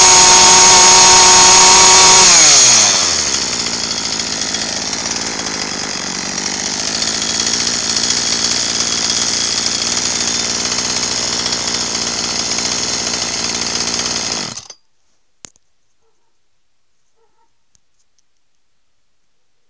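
Jonsered 2040 Turbo two-stroke chainsaw running at high revs, then dropping to a steady idle after about two seconds when the throttle is released. It idles for about eleven seconds, then cuts off suddenly as it is switched off, with a single click about a second later.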